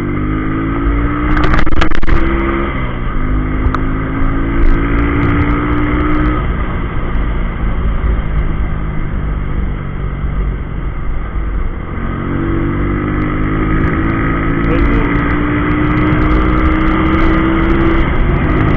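Street motorcycle with a chicken-pipe exhaust accelerating hard at full throttle: the engine note climbs, drops at a gear change about three seconds in, then climbs again. For several seconds midway wind rushing over the microphone covers the engine, and later the engine holds a high, slowly rising note on the top-speed run.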